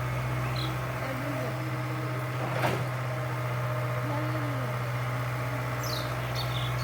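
Tractor diesel engine running steadily with a constant low hum, and a single sharp click about two and a half seconds in.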